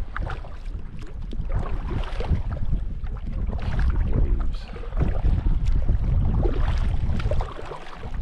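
Wind buffeting the microphone on a kayak on open water: a heavy, uneven rumble with scattered small splashes or knocks, easing for a moment near the end.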